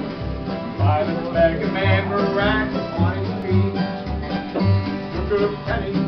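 Acoustic country-style band music: an upright double bass plucked on a steady beat, alternating two low notes, with plucked strings and a melody line above it.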